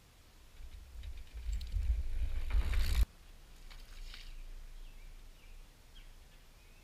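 A mountain bike passing close by, a low rumble with hiss that builds and then cuts off suddenly about three seconds in. Afterwards, quieter trail riding with faint clicks and a few short bird chirps.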